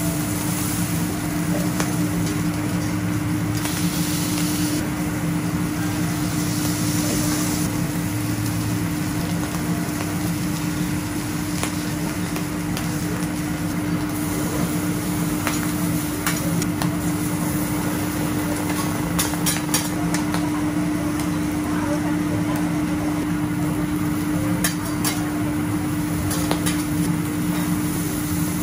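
Seafood sizzling on a steel teppanyaki griddle, with a metal spatula and cleaver clicking and scraping on the plate now and then. A steady mechanical hum runs underneath.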